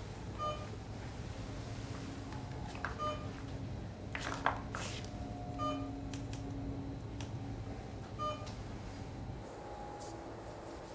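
Hospital patient monitor beeping, four short beeps about two and a half seconds apart, over a low steady hum of room equipment. A few soft clicks and rustles come in the middle. The beeping and hum stop shortly before the end.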